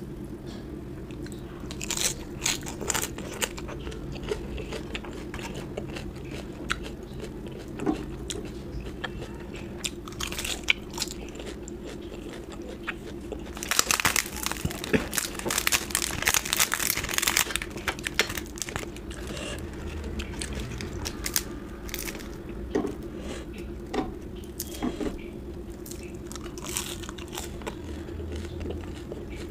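Close-miked eating: a person chewing and biting into food with scattered crunches, and a few seconds of dense, louder crunching about halfway through.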